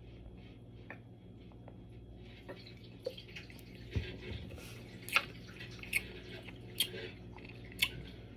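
A person drinking carbonated soda: soft wet swallowing clicks about once a second, starting about two and a half seconds in, over a faint low hum.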